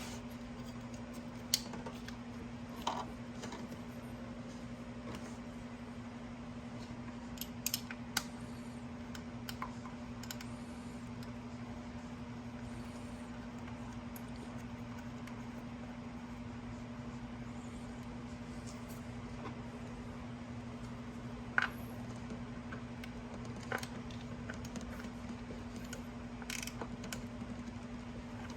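Occasional sharp clicks and light taps of hand tools during spark plug work on a truck engine, over a steady low hum.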